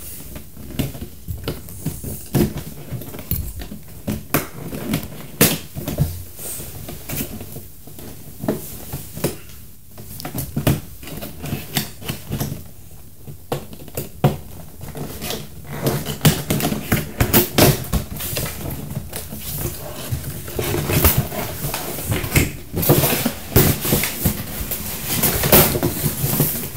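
Hands working open a cardboard toy box: irregular clicks, taps and scrapes of cardboard and plastic, getting busier over the last few seconds as the inner tray comes out.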